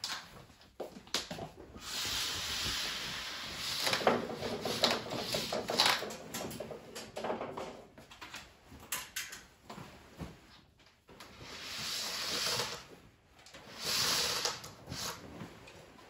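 Sheer tulle curtains rustling as they are pulled down, handled and piled up, with scattered light clicks and knocks in between.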